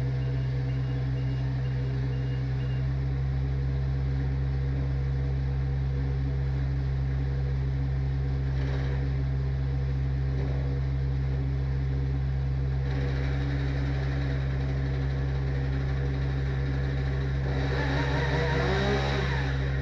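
An engine running steadily with a deep, even hum. Near the end a brief wavering sound rises over it.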